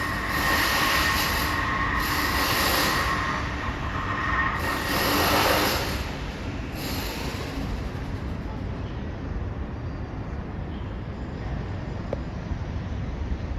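Renovation work with a power tool: a shrill, grinding whine in several bursts for the first six seconds or so. After that it gives way to a steady, duller background noise.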